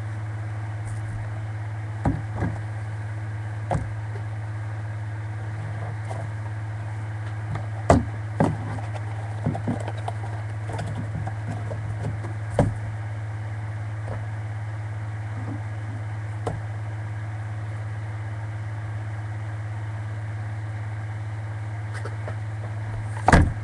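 Handling noise from a small handheld camcorder being turned over in the hands: about a dozen scattered knocks and clicks, the loudest about a third of the way in and just before the end, over a steady low electrical hum.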